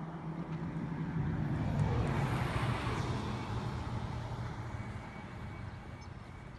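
A motor vehicle passing by. The engine hum and road noise swell to a peak about two to three seconds in, the engine note drops in pitch as it goes past, and then it fades away.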